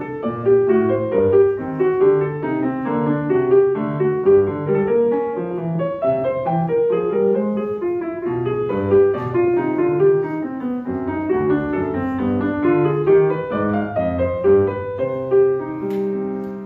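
Solo grand piano playing a steady stream of quick notes in a classical piece; near the end it settles onto a held chord that starts to fade.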